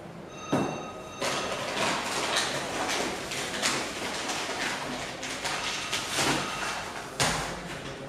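A plastic bag of coffee beans is handled, making irregular rustling and crinkling with a few sharper knocks.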